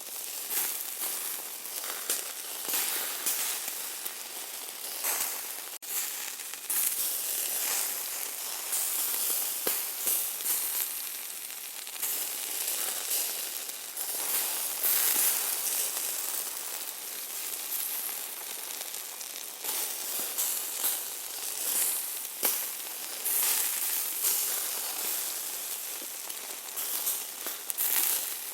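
Hamburger meat sizzling as it cooks: a steady high hiss that swells and eases, full of small crackles and pops of spattering fat.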